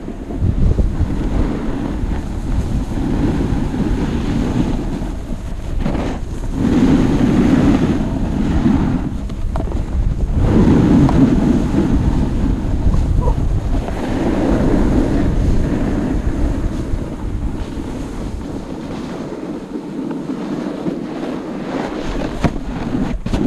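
Wind rushing over the microphone during a run down groomed snow, with the hiss and scrape of edges on the snow swelling and easing every few seconds. A few sharp knocks come at the very end as the camera pole is handled.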